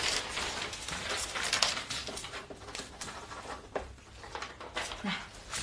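Soft rustling of paper sheets and light handling sounds as contract pages are passed across a table and signed, with a few small clicks or taps.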